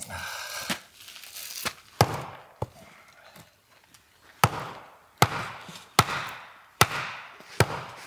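A blade chopping into a hard log of firewood: a series of sharp, ringing strikes, lighter and irregular at first, then steady at about one every 0.8 s from about halfway through. The wood is so hard that it will not split.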